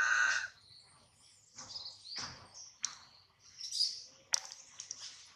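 Baby macaque crying: one loud, high-pitched cry in the first half second, then softer high squeaks, with a few sharp clicks.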